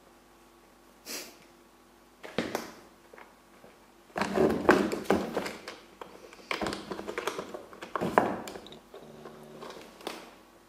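A cat thrashing about under a chair as it chases its tail: scuffles, thumps and knocks against the floor and chair. There are a few isolated ones at first, then a dense flurry from about four to eight seconds in.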